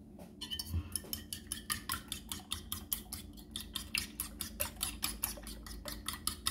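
Metal fork beating raw eggs in a ceramic bowl: quick, regular clicks of the fork against the bowl, starting about half a second in.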